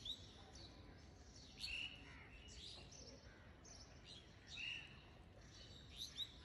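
Faint bird chirps: short calls repeated every second or so over near-silent room tone.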